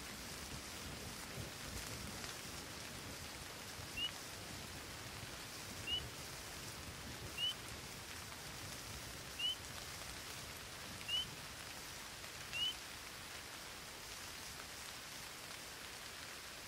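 Steady rain falling, with a short, high, rising chirp heard six times, spaced about a second and a half to two seconds apart, starting about four seconds in.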